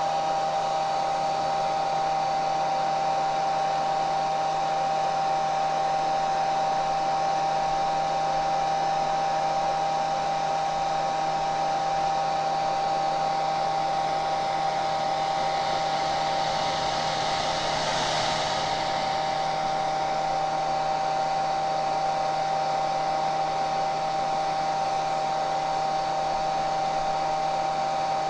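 Electric hair dryer running steadily on one setting, its blower motor giving a constant whine over the rush of air. The air hiss brightens briefly about two-thirds of the way through.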